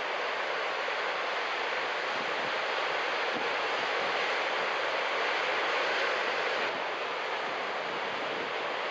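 Ocean surf breaking and washing ashore, a steady hiss of waves that swells slightly about six seconds in and then drops back a little.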